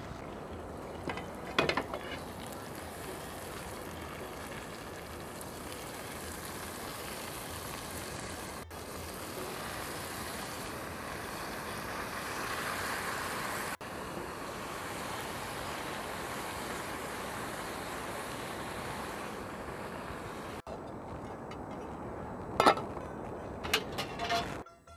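Lettuce and potatoes sizzling in hot ghee in a cooking pot: a steady hiss. A few sharp knocks come about a second in and again near the end.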